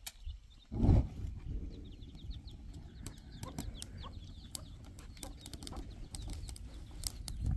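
Farmyard chickens clucking amid many quick, high bird chirps and scattered sharp clicks. A sudden loud thump comes about a second in, followed by a low rumble.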